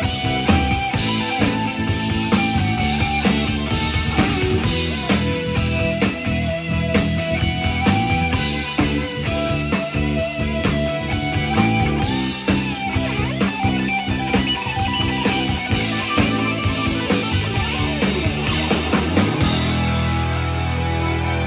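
Rock band playing live with no vocals: an electric guitar lead line over bass, drum kit and keyboards. About two seconds before the end the drums stop and a held chord rings on.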